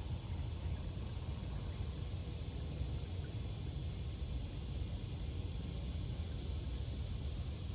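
A steady outdoor insect chorus: a continuous high, finely pulsing trill, over a constant low rumble.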